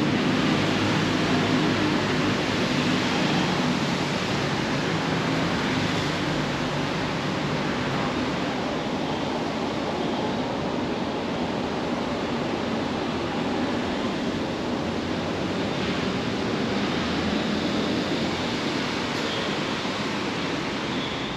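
Heavy rain pouring steadily, a dense even hiss.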